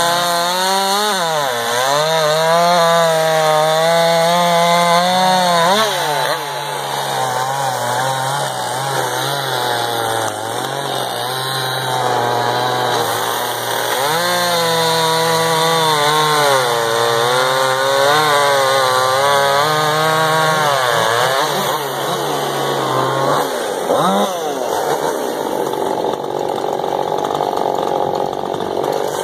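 Two-stroke chainsaws, one a Stihl, bucking logs at full throttle, the engine pitch repeatedly sagging and recovering as the chain bites into the wood and frees up.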